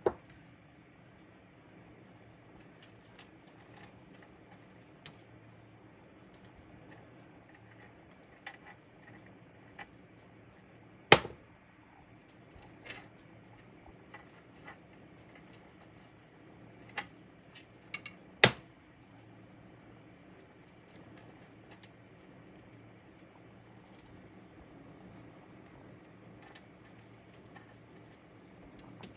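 A budgie pecking and scrabbling about, making scattered small clicks and taps over a low steady hum, with two sharp knocks about eleven and eighteen seconds in.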